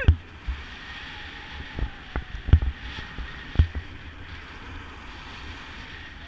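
Wind rushing over a camera microphone in paraglider flight: a steady hiss with low, gusty buffeting and a few sharp knocks, the loudest about two and a half and three and a half seconds in.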